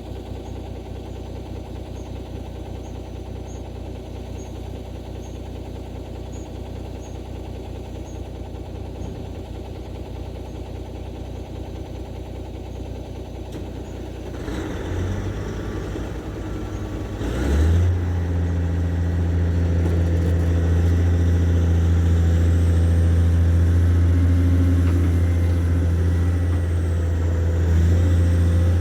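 Heavy diesel engine running steadily at low revs. About two-thirds of the way in it steps up sharply to a louder, deeper steady note as it takes on revs or load, and holds there.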